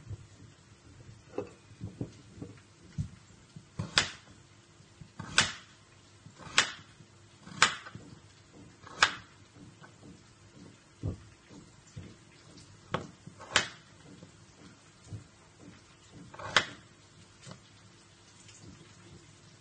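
Kitchen knife chopping raw potatoes on a plastic cutting board: sharp, irregular knocks of the blade striking the board, roughly one every second or two, some with a softer clatter of potato pieces dropped into a bowl.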